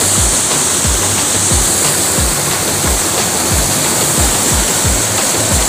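Waterfall rushing steadily, with the steady low beat of background music underneath.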